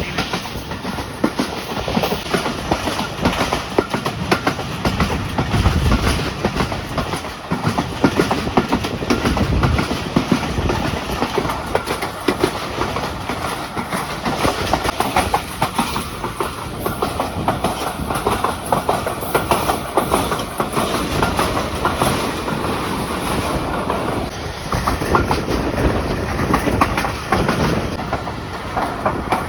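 Passenger train running at speed: a steady rumble from the coaches, with the wheels clattering over the rail joints throughout.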